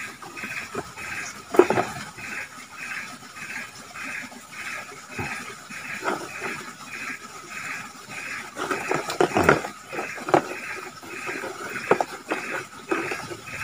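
Insects chirping in a steady pulsing rhythm, about two to three pulses a second. A few sharp knocks and rustles sound over it, the loudest about a second and a half in and around nine and a half seconds in.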